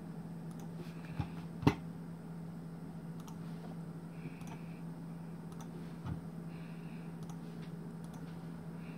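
A few sharp clicks, the loudest about two seconds in and another near six seconds, over a steady low hum from the computer setup.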